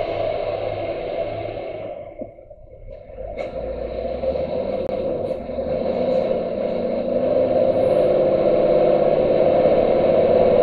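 Steady drone of a lorry's engine and road noise heard from inside the cab. At first there is extra mechanical noise from a tractor close alongside, fading over the first couple of seconds. The sound drops away briefly about two seconds in, then the steady drone returns.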